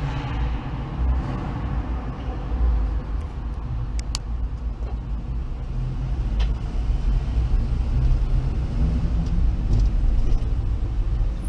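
Steady low engine and road rumble of a car driving slowly, heard from inside the car through a dash camera, with a few faint clicks.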